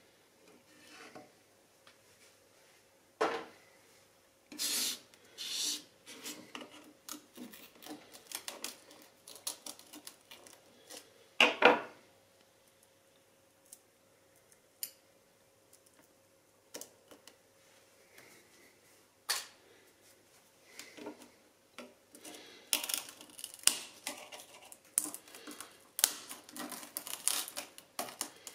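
Hands handling and working at a disassembled smartphone's display frame on a tabletop: scattered clicks, taps and scrapes of small parts. A sharp knock comes a few seconds in and a louder one about twelve seconds in, and the clicking grows busy near the end.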